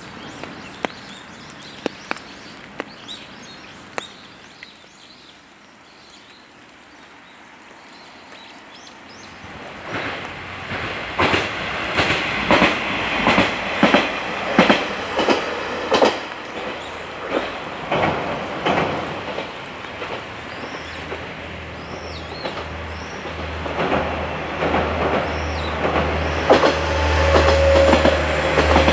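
Diesel train passing on jointed track: a few faint wheel clicks at first, then from about ten seconds in a loud, rhythmic clickety-clack of wheels crossing rail joints. A low steady hum from the train's drive grows louder near the end.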